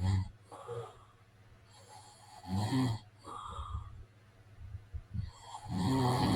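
A man snoring: a loud snore at the start, another about two and a half seconds in, and a longer one near the end, with quieter breathing between.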